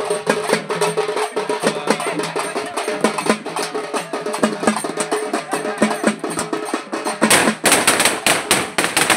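Procession band of parai frame drums struck with sticks in a fast, driving rhythm, with a steady drone under it. The drumming grows louder and denser near the end.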